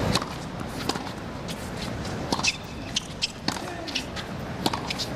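Tennis ball being struck and bouncing on a hard court during a rally: a series of sharp, irregularly spaced pops over a low crowd murmur.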